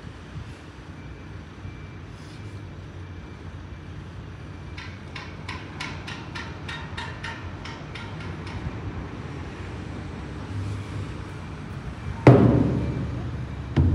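Steady low outdoor rumble, with a run of light, even ticks at about four a second for several seconds in the middle, then a sudden loud bang with a short ringing tail near the end and a second thump right at the end.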